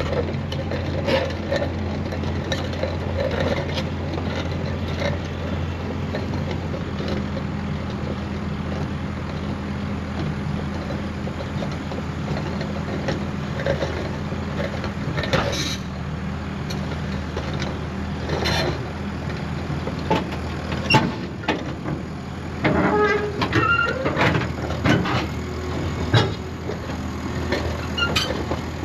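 A diesel engine running steadily, with scattered metallic clanks and knocks that come thicker and ring in the last few seconds.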